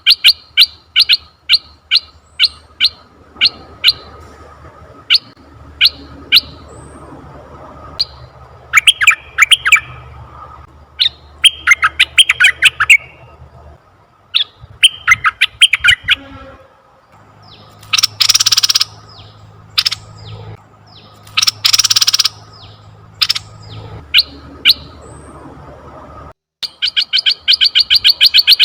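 Asian red-eyed bulbul calling: rapid series of short, sharp chirps, about four a second, broken by clusters of chattering notes and two harsh, rasping calls a little past halfway.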